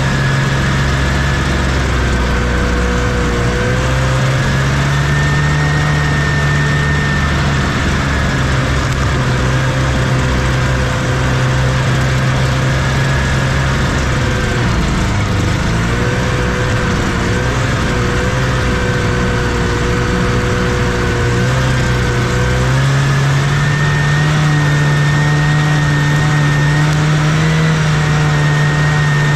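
1979 Scorpion Whip TKX 440 snowmobile's two-stroke engine running under way, heard from the rider's seat. Its pitch rises a few seconds in, sags about halfway, and climbs again in the last few seconds as the throttle changes.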